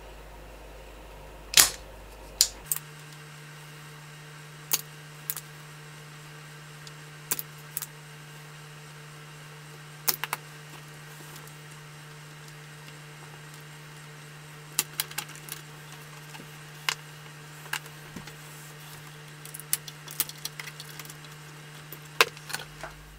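Scattered sharp metallic clicks and taps of a soldering iron and pliers on the amplifier's circuit board while desoldering old output capacitors, over a steady low hum.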